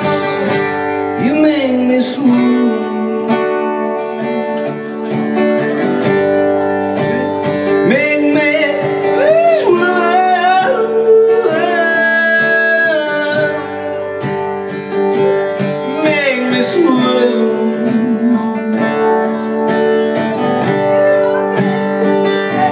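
Acoustic guitar strummed with a man singing over it, a live solo acoustic song performance.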